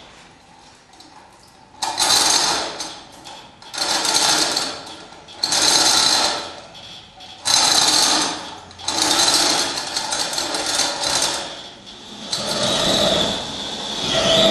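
Overhead chain hoist rattling in repeated pulls, about one burst of chain clatter every two seconds, as a boat hull slung from it is turned over.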